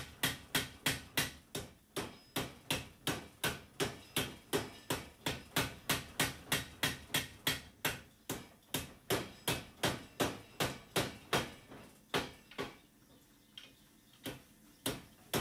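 Power hammer striking a hot damascus steel billet in a steady run of blows, about three to four a second, stopping for a few seconds near the end with only a couple of single strikes before resuming. The billet is being hit hard at a lower heat to flatten it and bring its corners out square and sharp.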